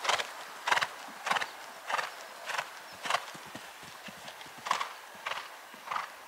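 Pony cantering on a sand arena: a stride beat about every 0.6 s, breaking off for a moment about three seconds in as it takes off over a jump, then picking up again on landing.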